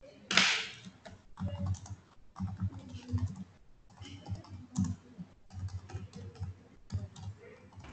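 Computer keyboard being typed on in irregular bursts, picked up over a video call, with one short loud burst of noise about half a second in.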